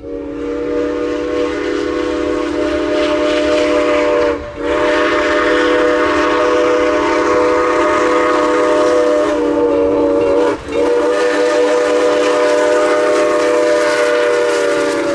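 Nathan six-chime steam whistle on a steam locomotive sounding a chord of several steady notes in three long blasts, each separated from the next by a brief break.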